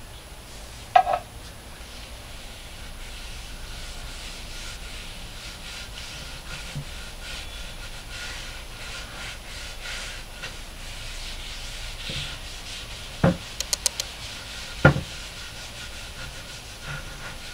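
Hand and cloth rag rubbing butcher block oil into the face of a poplar and alder cutting board, a steady soft wiping. A sharp clink comes about a second in, and a couple of sharp knocks near the end.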